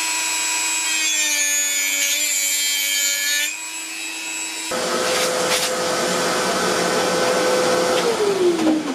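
Handheld high-speed rotary tool running with a steady whine as it grinds glue recesses into the side of a surface plate. Its pitch sags slightly under load. About five seconds in, it runs again at a higher pitch with a harsher grinding noise, then spins down with a falling whine near the end.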